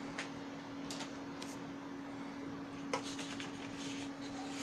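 HP Color LaserJet printer humming steadily after printing, with a few light clicks. About three seconds in, paper rustles as the printed sheets are handled in the output tray.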